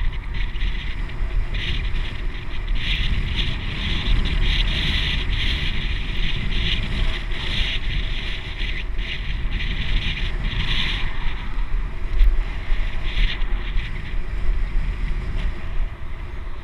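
Wind buffeting the microphone of a camera on a moving bicycle, a steady rumbling rush with road noise under it.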